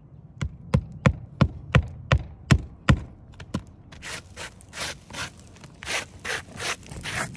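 Hammer knocking on a three-tab asphalt shingle roof, about eight even blows roughly three a second. About four seconds in, these give way to a hand rubbing back and forth over the gritty shingle surface in quick scraping strokes.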